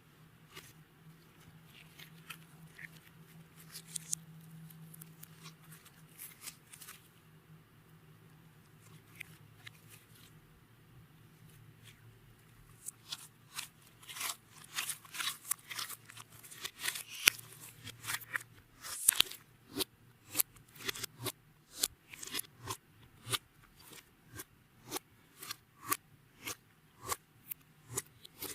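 Clear slime with beads mixed in being squeezed and worked by hand, giving sharp clicks and crunches. The clicks are sparse at first, grow dense and loud about halfway through, then fall into a rough rhythm of about two a second.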